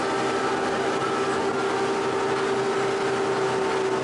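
Motorboat's outboard motor running steadily at speed with one held tone, over the rushing of the wake and wind.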